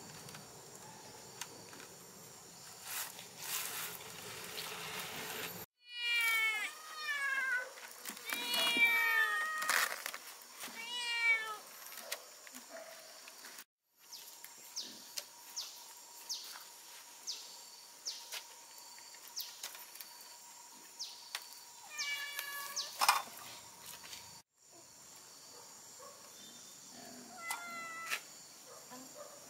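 A domestic cat meowing again and again in short calls that drop in pitch, coming in several runs, with light clicks and knocks between them.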